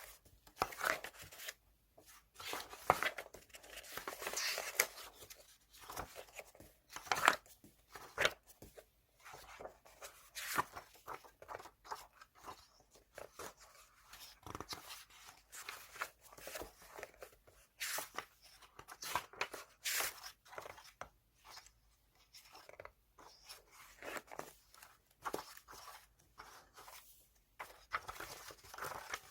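Scissors snipping through magazine paper, with paper rustling and being handled in between, in short irregular sounds.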